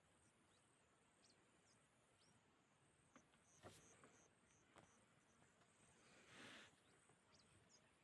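Near silence in the bush: faint, high insect chirring in a steady pulse a few times a second, with a few brief high chirps and a couple of soft clicks.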